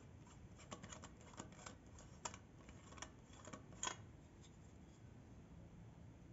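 Faint clicks and ticks of fingers and fingernails handling an opened plastic LED bulb and its circuit board, a dozen or so small irregular ticks, the two sharpest about two and four seconds in, then quiet handling.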